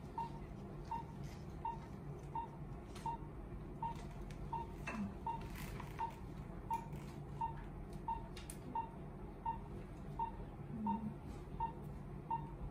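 Operating-room patient monitor beeping once with each heartbeat, a short even beep roughly every three quarters of a second, tracking the patient's pulse at about 80 a minute. A few faint clicks of handling come through around it.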